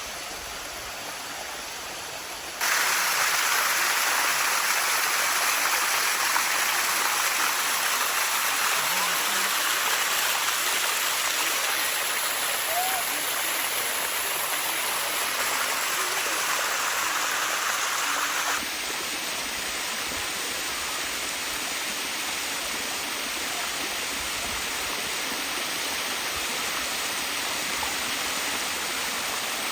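Water from the Bua Tong 'sticky waterfall' rushing steadily as it cascades down over limestone. It gets abruptly louder about three seconds in, then drops to a somewhat lower steady rush about two-thirds of the way through.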